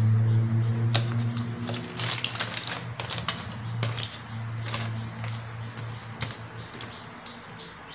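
Crumpled aluminium foil crinkling and crackling in irregular bursts as hands pull the foil wrapping open, over a steady low hum.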